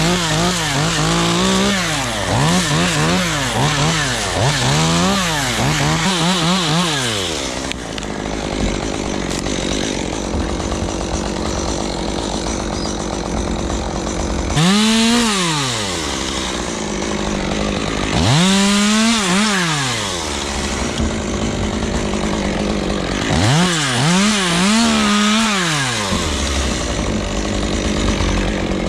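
Chainsaw engine revved up and down repeatedly, its pitch rising and falling in quick surges, with a stretch of steadier running in the middle.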